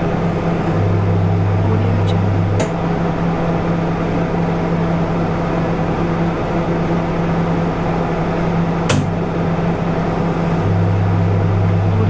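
An electric kitchen appliance running with a steady electrical hum over a hiss. A deeper layer of the hum cuts in and out, and there are two sharp clicks, one about two and a half seconds in and one near nine seconds.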